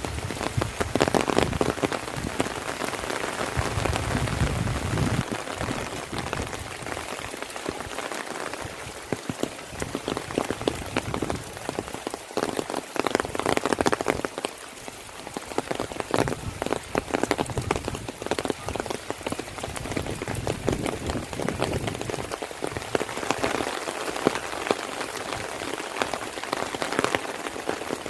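Heavy rain falling steadily, with a dense spatter of close individual drop impacts.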